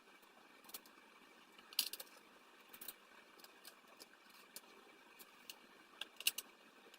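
Faint, scattered small clicks and taps of a hex screwdriver, screws and plastic parts being handled while screws are driven into a plastic rack's base. One sharper click comes about two seconds in and a quick cluster of clicks near the end.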